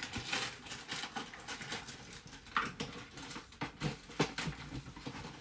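Packaging being handled and opened: irregular rustling with scattered clicks and light knocks.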